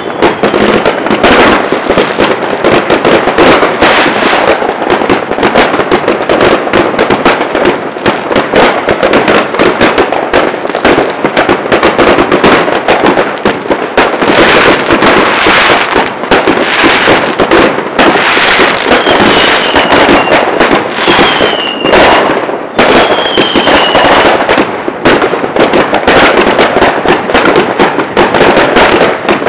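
Dense, continuous crackling and banging of many fireworks and firecrackers going off at once, with three short falling whistles about two-thirds of the way through.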